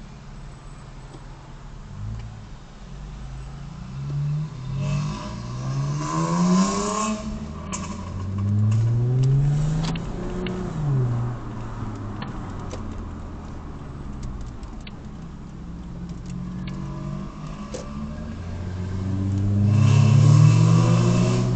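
Car engine revving up, easing off and revving up again near the end. A run of sharp pops and crackles sounds as the revs fall: overrun crackle from a BMW F10 523i's aftermarket Eisenmann exhaust on the stock engine map.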